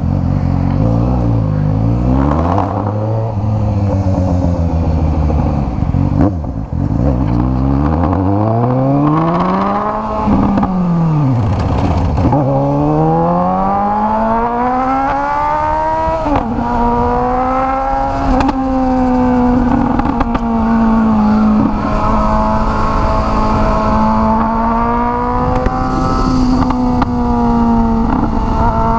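Suzuki GSX-S 750 inline-four running through a straight pipe with no silencer, heard from the rider's seat. It pulls away at low revs, then the revs climb and drop with gear changes and throttle. After about sixteen seconds it holds a fairly steady cruising pitch.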